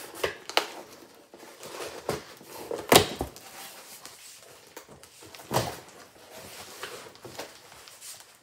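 Large cardboard shipping box being handled, with a few sharp knocks and scuffs against the cardboard. The loudest knock comes about three seconds in and another about halfway through.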